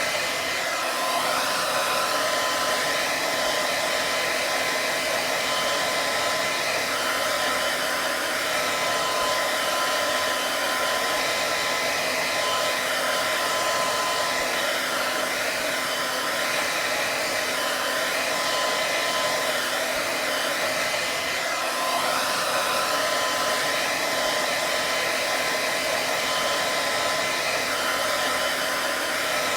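Hair dryer running steadily: an even hiss of blown air with a thin, steady whine in it.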